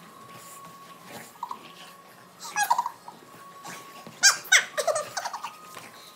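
Dogs play-growling and yelping during rough play, with short bursts of vocalising about two and a half seconds in and again around four to five seconds in.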